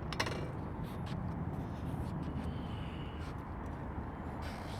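Steady low rumble of wind and road noise on the microphone of a camera carried on a moving bicycle, with a sharp clatter about a quarter second in and a brief hiss near the end.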